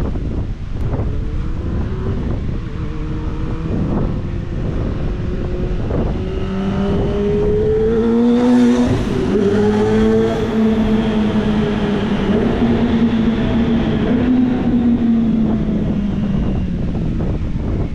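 Sport motorcycle engine under heavy wind noise, its pitch rising steadily for several seconds, dipping about nine seconds in, then holding and slowly falling away.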